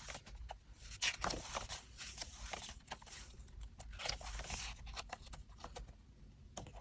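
Paper rustling and light taps and scrapes as the thick pages of an album photobook are handled and turned, in irregular bursts.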